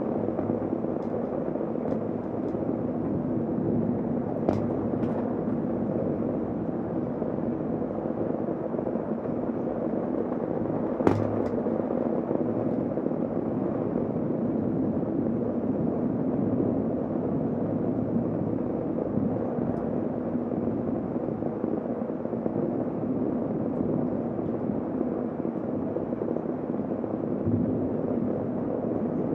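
Heavy rain falling steadily, a dull, even rush. A few sharp taps cut through it, the loudest about eleven seconds in.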